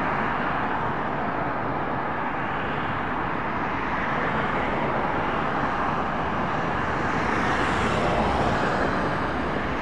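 Aircraft engines running on an airfield: a steady rushing drone that grows a little louder and brighter about eight seconds in.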